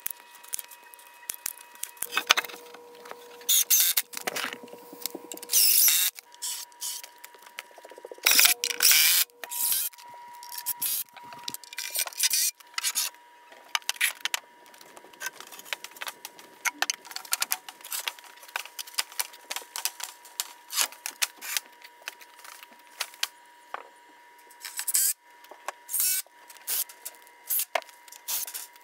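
Hand-tool carpentry work: a hand staple gun snapping as it fastens wire mesh to a wooden screen-door frame, with many sharp clicks and knocks of 2x4 lumber being handled and fitted. There are a few longer rasping runs, a cordless drill driving screws into the wood.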